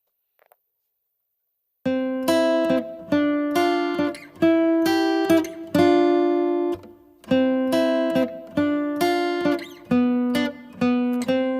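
Background acoustic guitar music: a melody of single plucked notes, each ringing and fading, starting about two seconds in after near silence.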